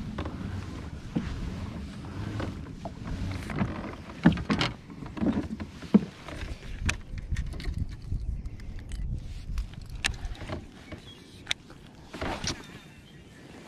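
Handling noise from fishing in a plastic kayak: scattered clicks and knocks of rod, baitcasting reel and hull over a low rumble. Two sharper knocks stand out about four and six seconds in.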